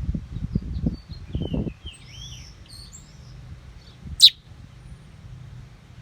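A small bird chirps: a quick run of short, sweeping high chirps about two seconds in, then one sharp, loud high note a little after four seconds. A low thumping rumble fills the first second and a half.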